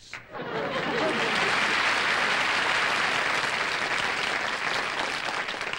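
Studio audience applauding: a dense, steady clapping that swells up at the start and eases off near the end.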